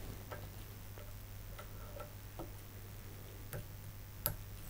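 Small scattered clicks and taps from fly-tying tools being handled at the vise, with two sharper clicks near the end, over a low steady hum.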